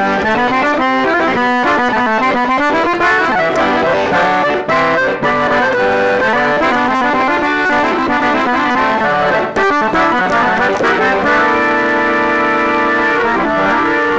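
A three-row button accordion in G, C and F playing fast melodic runs, then a chord held for about two seconds near the end before the notes start again.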